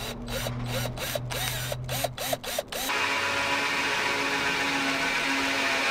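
Power drill cutting a faucet hole in a sink: about four short pulses a second over the motor's hum, then, about three seconds in, a louder steady run.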